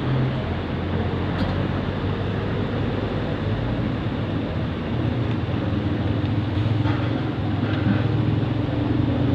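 Steady rumble of passing traffic with a low engine hum under it, which grows a little louder after about five seconds.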